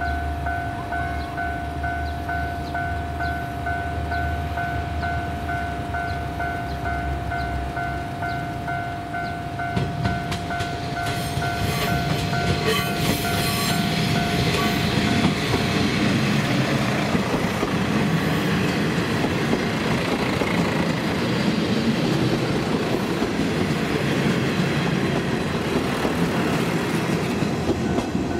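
Kanto Railway KiHa 0-series diesel railcars, a four-car train, approaching and running past close by: diesel engines and wheels clattering over the rail joints, growing louder from about a third of the way in and staying loud. Before the train arrives a steady repeating warning tone rings, stopping about halfway through.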